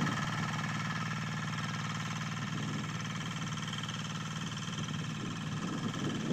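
Two-wheel hand tractor's single-cylinder diesel engine running steadily under load as it pulls a plough through the soil.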